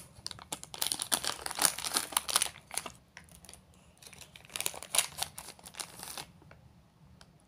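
Plastic candy wrapper crinkling in a child's hands, in two stretches of dense crackle with a pause between them.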